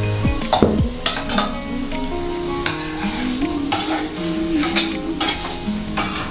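Metal spoon stirring and scraping in a cooking pot, with repeated clinks over a sizzling hiss.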